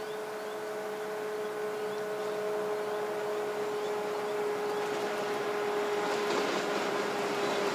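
Diesel-electric locomotive 42103 approaching at speed with a train: a steady engine drone with a held whine, growing steadily louder, with wheel and rail noise building over the last few seconds.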